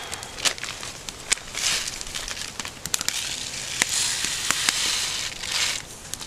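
Dry rice mix pouring from its pouch into a stainless steel cup, a grainy hiss that swells from about three seconds in. A wood campfire crackles with sharp pops throughout.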